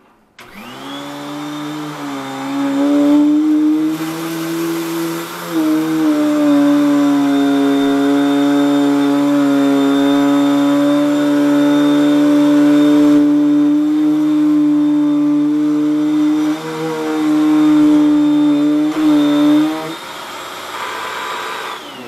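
Hoover Tempo upright vacuum cleaner switched on, its motor running with a loud, steady whine whose pitch shifts a few times as it is pushed over a rug. It is switched off near the end and winds down.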